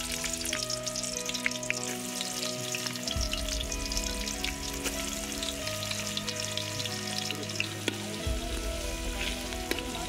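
Sliced onions frying in hot oil in an aluminium cooking pot, a steady sizzle with scattered crackles as they are stirred with a metal spoon.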